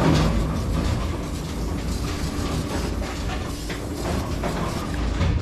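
Aerosol can of WD-40 spraying onto a pinsetter front roller bearing housing, a steady hiss over a low background rumble and hum.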